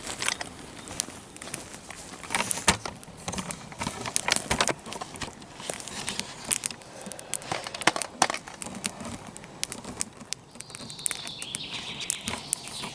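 Small brushwood campfire crackling, with many irregular sharp pops and snaps of burning twigs.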